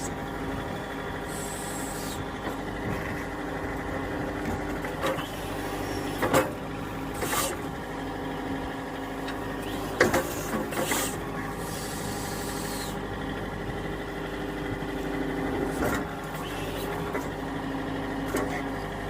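John Deere 4052R tractor's diesel engine running steadily at about 1500 RPM, working the 485A backhoe while it digs. Several sharp knocks and two short spells of hissing sound over the engine.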